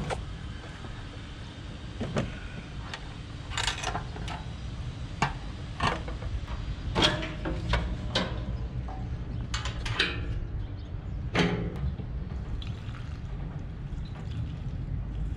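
Plastic jerry can and the filler cap of a portable petrol generator being handled for refuelling: a dozen or so scattered knocks and clunks, with fuel pouring into the tank near the end.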